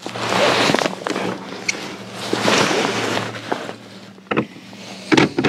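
Steady low hum of the kayak's electric trolling motor, under two loud swells of rushing noise, with a few sharp clicks near the end.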